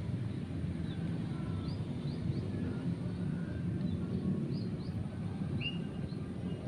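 Outdoor field ambience: a steady low rumble, with faint short high chirps scattered through, a few every second or two.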